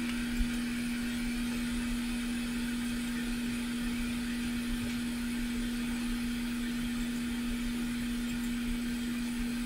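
Small electric fan running steadily on the workbench: a constant hum with an even hiss over it, unchanging throughout.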